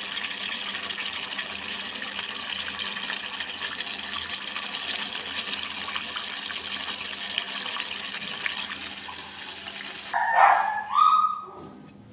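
Mutton curry boiling in an open aluminium pressure cooker over a gas flame, a steady hiss with fine crackling bubbles. About ten seconds in, a dog yelps twice, much louder than the boiling.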